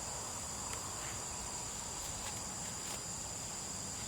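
Steady, high-pitched chorus of insects, with a few faint light ticks.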